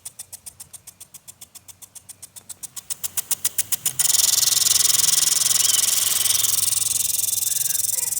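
Lawn sprinkler at work: a quick run of ticks, about nine a second, growing louder, then from about four seconds in a steady loud hiss of spraying water.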